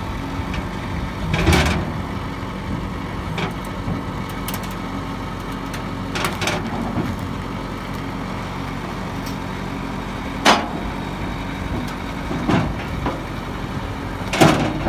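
An engine idling steadily, with about five sharp metallic knocks and clanks spread through, the loudest two near the middle and at the very end.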